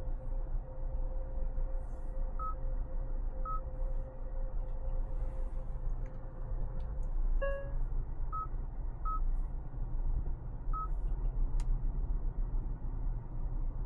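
2025 Hyundai Santa Fe driving, with a steady low road-and-drivetrain rumble. Over it are a steady mid-pitched tone that stops about halfway, a handful of short, irregularly spaced high electronic beeps, and a single chime about halfway through.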